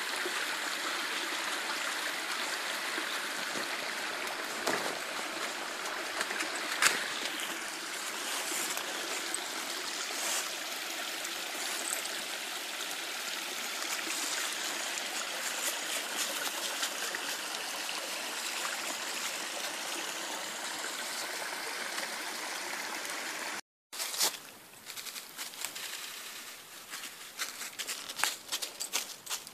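Shallow rocky woodland stream running and trickling over stones, a steady rush of water, with one sharp click about seven seconds in. After an abrupt break near the end the water gives way to quieter, irregular rustling and crackling in dry fallen leaves.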